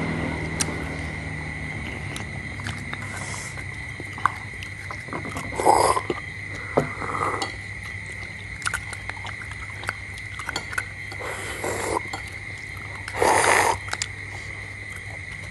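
Close-up eating sounds: a handful of short slurps and sucks as balut eggs and their broth are eaten from the shell, the loudest near the end, with small clicks of spoons on shells and dishes. A steady high-pitched tone and a low hum run underneath.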